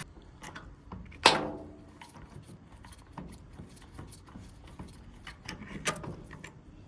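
Metal parts of a starter motor being handled and pulled apart on a bench: small clicks and knocks, with one loud ringing metallic clink about a second in.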